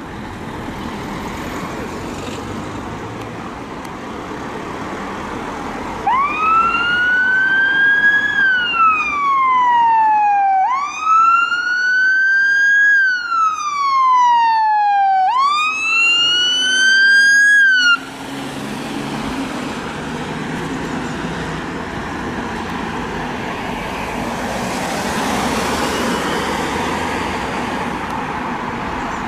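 Ambulance siren in wail mode: three slow sweeps, each rising quickly, climbing to a peak and then gliding down over about four to five seconds, starting about six seconds in and cutting off abruptly about eighteen seconds in. Before and after it, steady road traffic noise.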